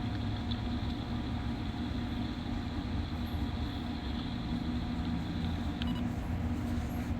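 Steady low rumble with a hum that pulses on and off, a strange rhythmic drumming of unknown source.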